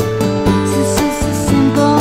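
Country-style background music with guitar and a steady beat of about two strokes a second.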